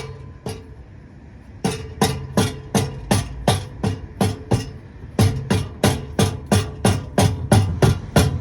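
Background music with a steady, punchy beat of about two to three hits a second and a low bass line; the beat drops out for about a second near the start, then comes back.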